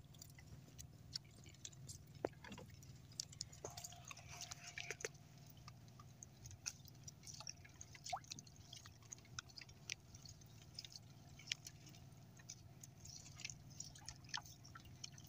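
Quiet water lapping and dripping against the hull of a small outrigger boat: scattered faint clicks and drips over a low steady hum.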